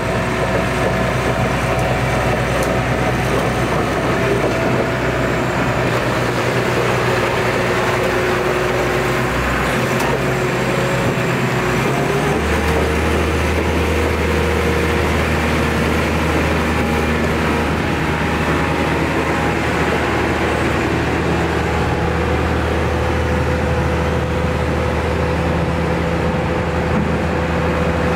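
Diesel engine of a New Holland Kobelco E215 crawler excavator running steadily. Its note changes about halfway through.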